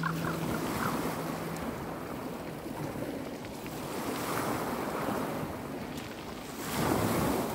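Small sea waves breaking and washing up over a pebble beach, a steady wash that swells as each wave comes in, with a louder surge near the end.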